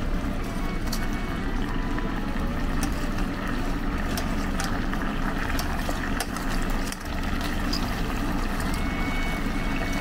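Fried chicken pieces being turned in bubbling sauce in a saucepan with metal tongs: the liquid sound of the sauce with light clicks of the tongs against the pan, over a steady low kitchen hum.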